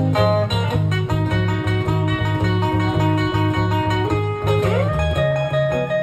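Taylor T5z hollow-body electric guitar playing an instrumental blues passage: a steady repeating low riff with single-note lead lines above it, and a string bend rising about four and a half seconds in.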